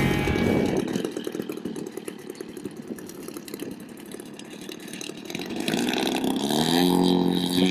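Large radio-control aerobatic airplane's engine running low with a rapid ticking, then throttling up about five and a half seconds in, its pitch rising as the plane accelerates across the grass for takeoff.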